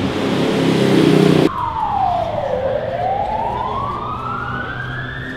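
A street siren wailing: one tone drops for about a second and then climbs slowly for about three seconds. Before it, about a second and a half of loud, busy background noise cuts off abruptly.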